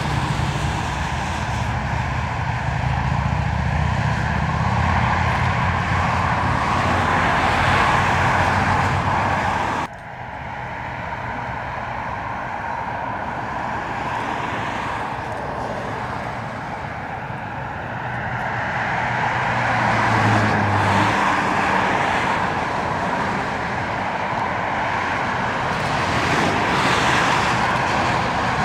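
Aircraft engine noise passing overhead, steady and loud. It cuts off abruptly about ten seconds in, then builds and swells again.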